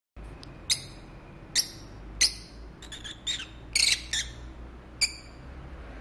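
Peach-faced lovebirds chirping: about ten short, sharp, high-pitched chirps at uneven intervals, with a quick run of them around the middle.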